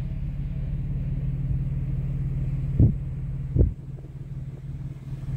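Vehicle engine droning steadily with a low rumble, heard from inside the cab while crawling up a bumpy gravel track. Two sharp thumps a little under three and about three and a half seconds in, after which the sound drops to a quieter rumble with small knocks.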